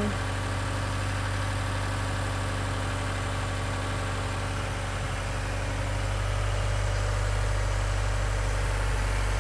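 Subaru WRX's FA20DIT turbocharged flat-four idling steadily on a newly fitted Nostrum high-pressure fuel pump, running normally with no misses. It gets a little louder about six seconds in.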